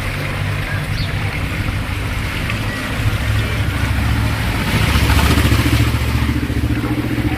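Motor vehicle engine running in street traffic, getting louder from about halfway through, over a steady hiss of street noise.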